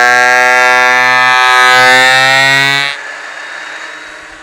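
Ridgid thickness planer feeding a board through, its cutterhead giving a loud steady whine. About three seconds in the board clears the knives, and the whine drops abruptly to the quieter hum of the machine running free.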